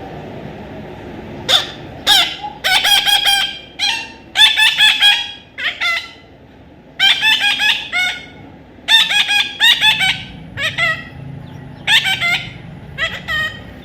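Parrot calling in loud bursts of rapid, harsh repeated squawks, about a dozen runs of notes with short pauses between them.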